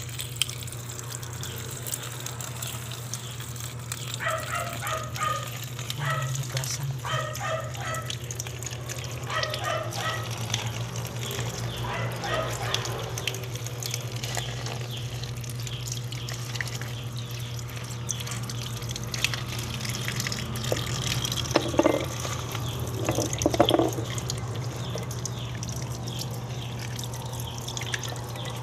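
Tap water running and splashing over a bunch of guava leaves as they are rinsed and rubbed by hand, with a steady low hum underneath. Short pitched sounds come in clusters twice, the louder ones near the end.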